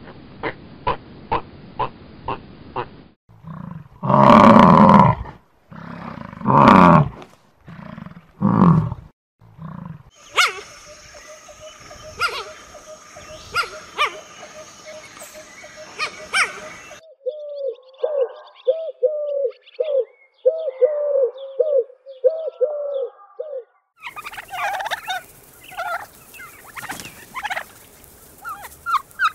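Several different animal calls cut back to back, the sound changing abruptly every few seconds. Near the end a domestic turkey tom is gobbling.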